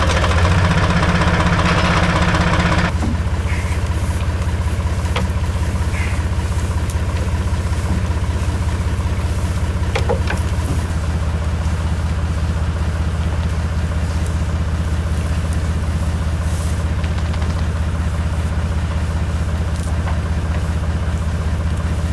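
A motor running steadily at idle, a low hum with a louder hiss over it that cuts off about three seconds in.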